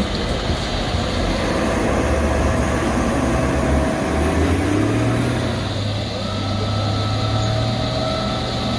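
Heavy diesel engine of a logging machine, likely a skidder, running steadily under load; its revs rise about halfway through.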